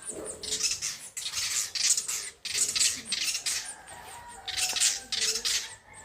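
Birds squawking in short, harsh bursts, over and over, with high thin chirps among them.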